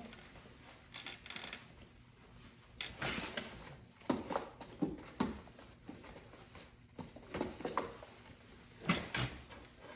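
Handling noises: clothing rustling and a few scattered knocks and creaks as a man gets up from a folding chair and a puppy shifts about on a plastic placeboard. They are thickest a few seconds in and again near the end.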